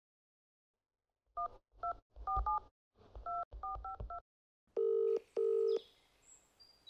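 Touch-tone telephone keypad dialing: a quick run of about eight short two-tone beeps as a number is keyed in. It is followed by the caller's-side ringing tone, two short buzzes close together like a British double ring, as the line rings out.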